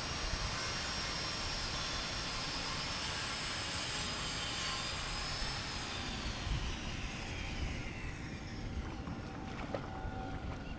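Aircraft passing overhead: a steady rumble with a high whine that slowly falls in pitch in the second half.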